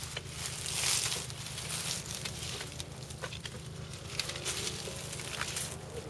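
Hand-picking grapes among the vines: leaves rustle and a few short, sharp clicks sound as the clusters are cut and handled, over a steady low rumble.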